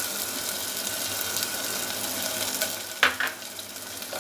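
Onion paste frying in hot ghee in a clay pot, a steady sizzle with fine crackle, as a wooden spatula scrapes it in and stirs. About three seconds in come two short, sharp scrapes.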